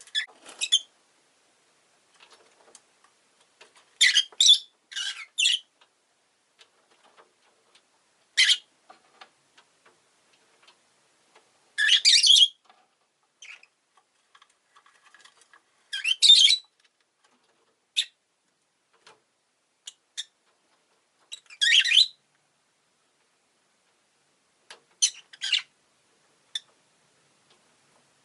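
Peach-faced lovebird giving sharp, high-pitched squawking chirps, singly or in quick runs of two or three, with pauses of a few seconds between them.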